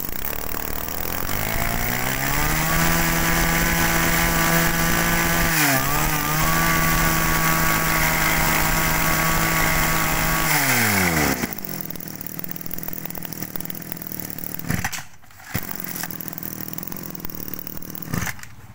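Kioritz 240 brush cutter's 24cc two-stroke engine revved up from idle about two seconds in and held at high revs, with a brief dip near six seconds. Around eleven seconds the throttle is let off and the revs fall away.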